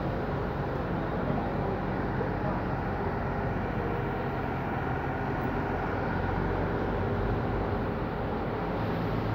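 Diesel engine of a truck-mounted concrete pump running steadily, a constant low drone, with voices in the background.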